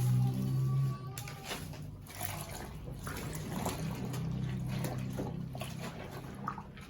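Water sloshing and splashing as clothes are stirred by hand in the water-filled tub of a top-load washing machine, with detergent mixed in.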